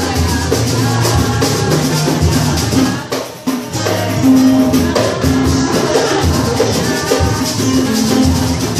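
Batucada: a samba percussion group playing drums and shakers together. The playing breaks off briefly about three seconds in, then the full group comes back in.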